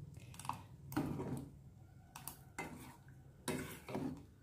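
A ladle stirring thick black rice porridge in a stainless steel pot, with a few faint scrapes and knocks of the ladle against the pot.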